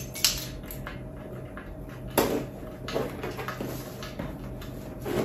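Cardboard shipping box being opened by hand: scattered scrapes, taps and rustles of fingers working at the packing tape and flaps, with a sharper crackle about two seconds in.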